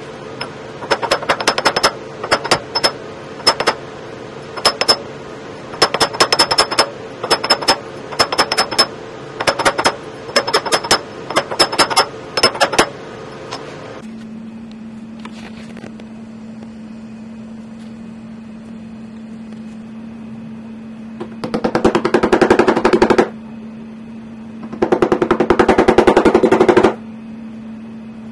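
Metal being struck in rapid runs of many taps a second, each run lasting one to two seconds. Runs come close together in the first half; from about halfway a steady low hum sets in, with two longer runs of tapping near the end.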